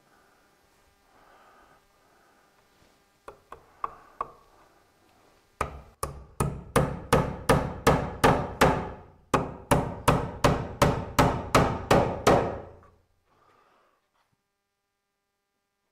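Claw hammer nailing a metal electrical box onto a wooden wall stud: a few light taps to set the nails, then two runs of steady, sharp blows about three a second, with a short pause between them.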